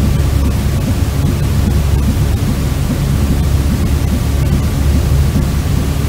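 Steady, unbroken white noise of the kind played to soothe a colicky baby to sleep, deep and even, with most of its weight in the low end.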